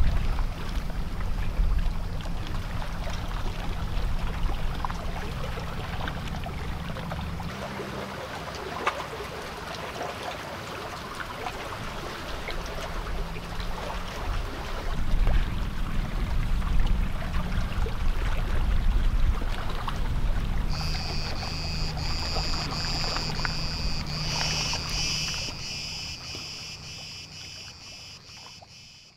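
The low, steady hum of a boat engine out on the sea. About two-thirds of the way in, cicadas start a fast, pulsing, high buzz, and everything fades out at the end.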